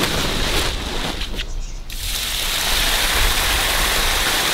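Water rushing over the pressed-down rim of an overfull inflatable pool and splashing out, uneven at first and a steady, louder rush from about two seconds in.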